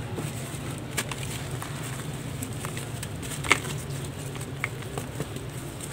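Dry sand-cement lumps being crushed by hand into a metal bowl: gritty crackling with scattered small clicks as pieces snap and fall, and one sharper crack about three and a half seconds in.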